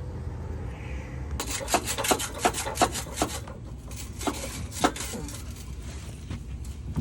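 Hand tools clicking and tapping on the stock exhaust's clamp and hanger underneath the car: a quick, uneven run of about a dozen sharp clicks starting over a second in, thinning out after about five seconds, over a low steady rumble.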